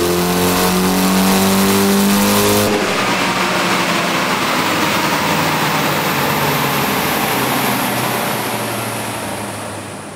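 Turbocharged four-cylinder engine of a Mitsubishi Lancer Evolution VI running on a chassis dyno, its note rising steadily as it revs under load. About three seconds in the note breaks off into a rushing noise with a faint falling whine, fading slowly as the run winds down.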